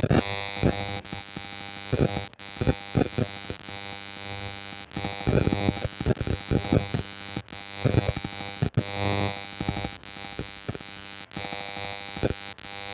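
Footsteps on a wooden plank boardwalk, irregular knocks a couple of times a second, over a steady hum.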